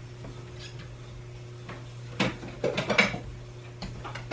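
Dishes clinking and knocking as a bowl is taken out of a kitchen cupboard: a few short knocks in the second half, over a steady low hum.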